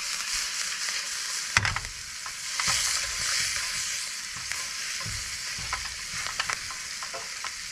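Ribeye steak sizzling as it sears in a stainless steel frying pan with garlic and thyme, with scattered clicks and knocks of metal tongs against the pan, the sharpest about a second and a half in.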